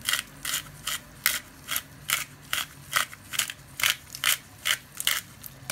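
Hand-twisted pepper mill grinding black pepper, a steady run of short gritty crunches about two and a half a second as the mill is turned back and forth.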